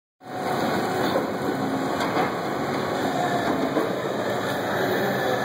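Hydraulic excavator fitted with a rock crusher attachment, working: a steady, dense machine noise with a few faint clicks and clanks.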